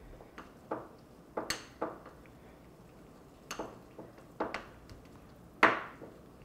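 A small spatula scraping and knocking against a ceramic bowl in irregular clicks, working water into stiff rolled buttercream to thin it for piping. The loudest knock comes near the end.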